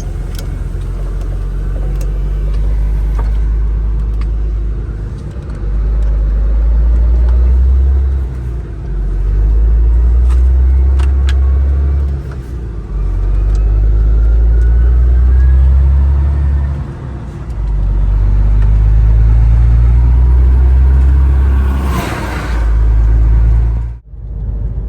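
A heavy truck's diesel engine is heard from inside the cab as it pulls away and accelerates. It pulls hard in several stretches, broken by short dips that fit gear changes. There is a brief hiss near the end.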